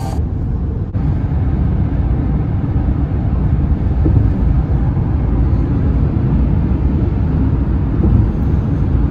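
Road noise inside a car cruising at highway speed: a steady low rumble of tyres and engine heard from the cabin.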